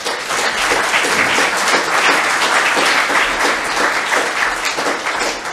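Audience applauding: a steady stretch of many hands clapping that eases a little near the end.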